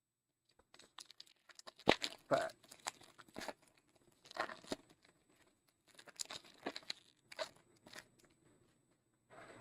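Glossy trading cards being handled and slid apart, making irregular crisp rustling and scraping noises in short strokes.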